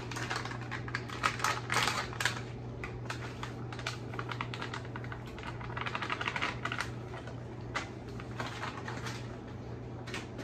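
Crinkling and rustling of a plastic seasoning bag as it is handled, opened and shaken out over a pot, a dense run of small irregular crackles that thickens about two seconds in and again around six seconds in.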